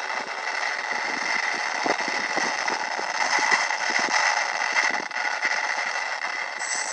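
Electric motor and propeller of a Tech One Mercury EPO foam RC plane in flight: a steady buzzing whine of several held tones under gusty noise.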